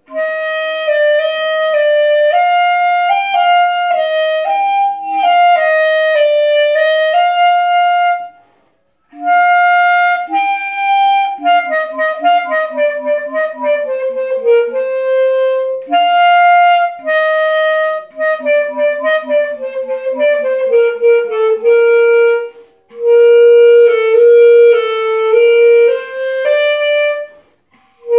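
Solo clarinet playing an etude, mixing held notes with quick running passages, broken by three short pauses. The last stretch settles on long, low held notes.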